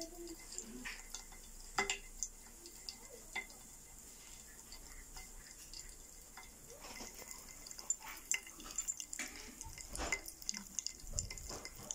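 Popping candy crackling in a green glass bottle of liquid: scattered faint pops and ticks that come thicker from about seven seconds in, with a couple of low bumps near the end.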